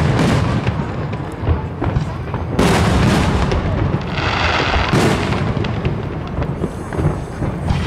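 Aerial firework shells bursting in a steady series of echoing booms: one as it begins, another about two and a half seconds in and another about five seconds in, with a hissing burst just after four seconds and low rumble between.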